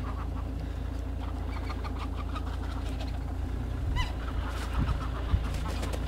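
A flock of geese calling in short, scattered calls, with one clearer call about four seconds in, over a steady low rumble. A few low thumps come near the end.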